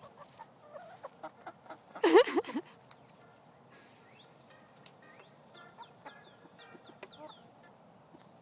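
Chickens clucking, with one loud squawk about two seconds in and a run of soft, quick calls later on. Light taps of beaks pecking food off the glass of a mirror laid flat sound in the first two seconds.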